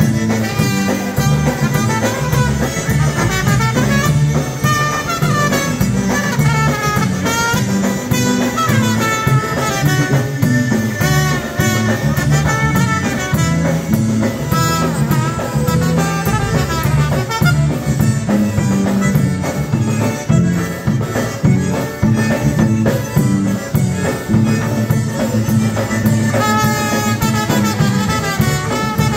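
Live dance band playing an upbeat number: trumpet and violin carry the melody over electric bass and a drum kit, without a break.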